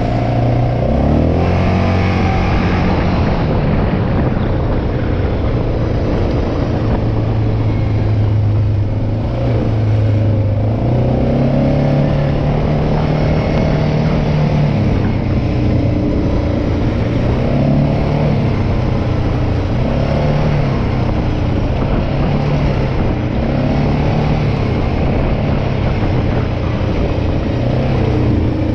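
Quad (ATV) engine running while riding, its pitch rising and easing off again every few seconds with the throttle.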